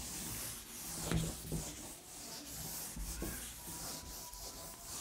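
Felt chalkboard duster rubbing chalk off a blackboard: a steady scrubbing sound with a few light knocks.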